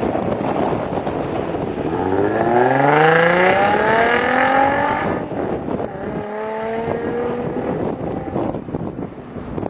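2004 Nissan 350Z's 3.5-litre V6 through a Spintech aftermarket exhaust, accelerating as it drives by. The engine note climbs in pitch for about three seconds, drops at a gear change, then climbs again more gently. Heavy wind noise on the microphone throughout.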